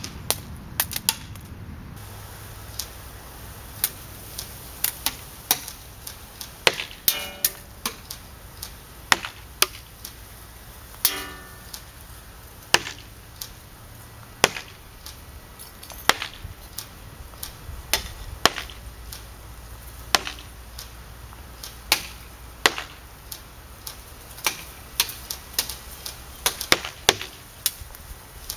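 Airsoft BBs striking a target, sharp single clicks about once a second and now and then two in quick succession. Twice a hit rings briefly.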